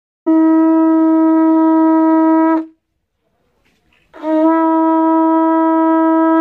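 Conch shell trumpet blown in two long, steady blasts on one held note, each a little over two seconds. The second blast bends slightly up in pitch as it starts, about four seconds in.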